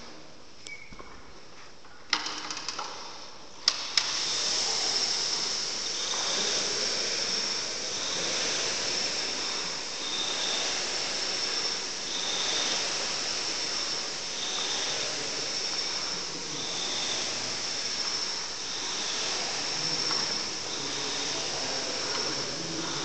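Concept2 air-resistance rowing machine being rowed. Its fan flywheel gives a whooshing hiss that swells with each drive, about one stroke every two seconds. A few clicks and knocks come two to four seconds in, before the rowing starts.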